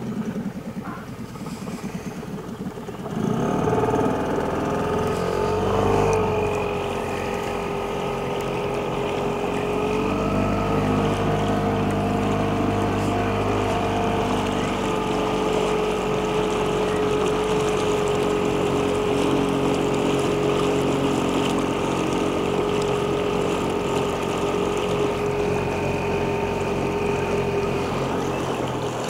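Small boat's outboard motor coming in about three seconds in and running at a steady pitch, a whine over a low hum, easing slightly near the end.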